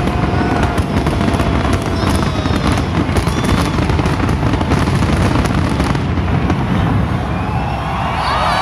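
A fireworks display going off densely, with rapid crackling and banging.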